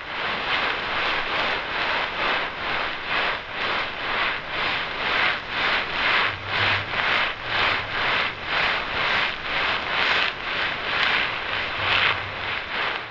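Rhythmic hissing, scraping noise swelling and fading about twice a second. A low hum comes in briefly twice in the middle and once near the end.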